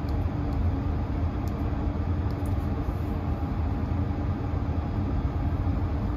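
John Deere tractor's diesel engine idling, a steady low drone heard from inside the cab.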